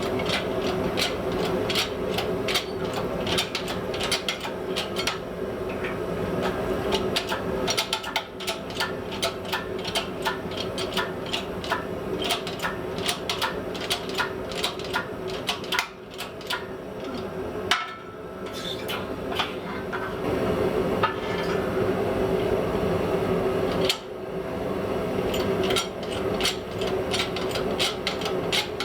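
Hand hammer striking hot 1045 steel on an anvil in a steady run of blows, several a second, with short pauses between heats of blows: forging the set-down on a hardy blank. A steady hum runs underneath.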